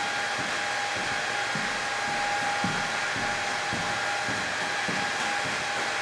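Steady whirring of a small fan motor, an even rushing noise with a constant hum tone running through it.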